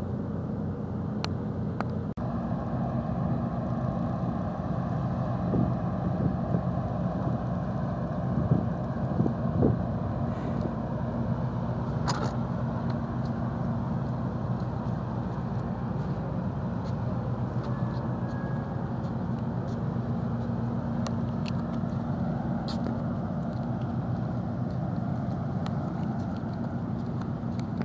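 A large engine running steadily at idle: a constant low drone with a pitched hum, with scattered light clicks and one sharper knock about twelve seconds in.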